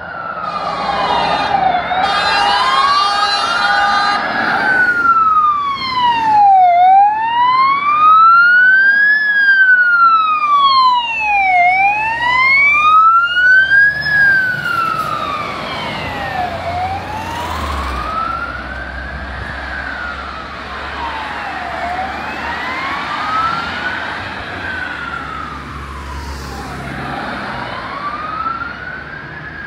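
Scania fire engine's siren wailing, sweeping slowly up and down about once every five seconds, with a steady pulsing tone over it for the first four seconds. It grows loud as the truck approaches and passes, then fades as it drives away.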